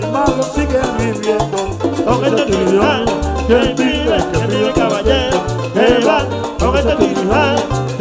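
Live Dominican son band playing a section without words: an upright bass line repeating under hand drums and keyboard, with a wavering lead melody rising over the band from about two and a half seconds in.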